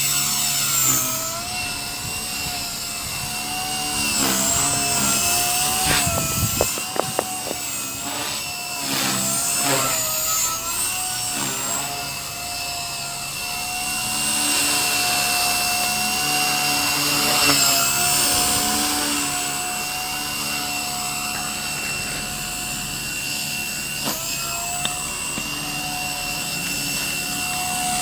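Blade 130 X electric micro RC helicopter in flight: a steady high whine from its motors and rotors that wavers up and down in pitch as it manoeuvres. A few short sharp ticks come about seven seconds in.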